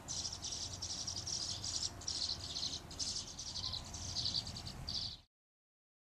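Nestling birds begging at a feeding: rapid, high chattering calls in about nine short bouts. The sound cuts off suddenly about five seconds in.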